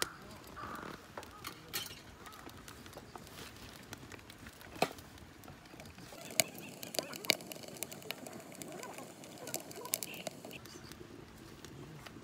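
Wood fire burning in a stainless-steel camping rocket stove, crackling with irregular small snaps and a few sharper pops around the middle.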